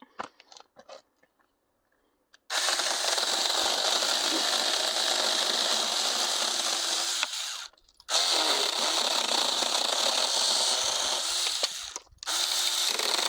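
Saker battery-powered mini electric chainsaw running and cutting branches in three stretches of a few seconds each, the first starting about two and a half seconds in, with brief pauses between them. A high hiss of the chain over a lower motor hum whose pitch dips now and then.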